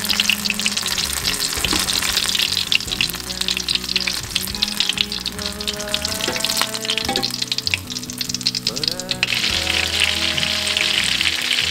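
Batter fritters deep-frying in very hot vegetable oil in a saucepan, the oil sizzling with a dense, steady crackle of fine pops.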